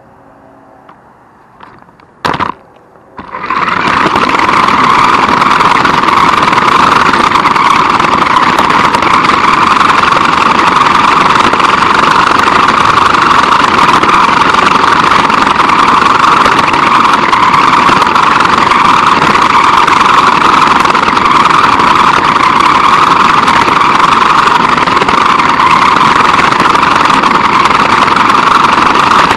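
Small RC car's motor and drivetrain whining loudly and steadily as the car drives along pavement, heard close up from a camera riding on the car. It starts about three seconds in, just after a short click.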